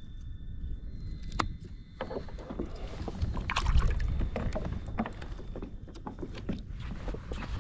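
Water splashing and dripping beside a plastic sit-on-top kayak as a hand is dipped and rinsed over the side, with scattered knocks of gear against the hull and a low wind rumble on the microphone. The splashing thickens about two seconds in and is busiest around the middle.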